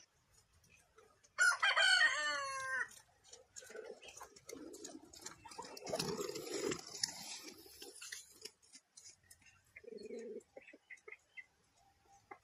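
A rooster crowing once, about a second and a half in, followed by quieter scattered clattering and rustling.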